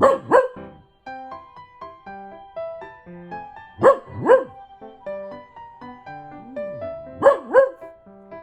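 Italian greyhound barking in three pairs of sharp barks, the pairs about three and a half seconds apart, roused into barking by an ambulance siren. Soft piano background music plays underneath.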